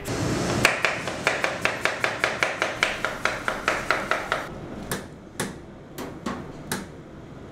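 Kitchen knife chopping on a cutting board in quick, even strokes, about three a second, followed by a few slower, scattered knocks.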